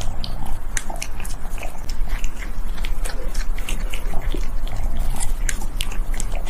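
A cat eating, close up: a steady run of small, crisp mouth clicks and smacks as it chews and licks soft food, several a second.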